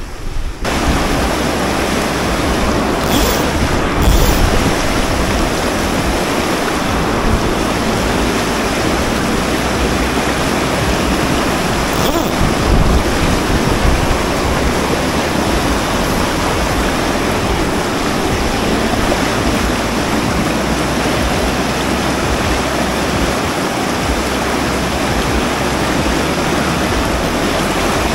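Fast river rapids rushing steadily, with low wind rumble on the microphone.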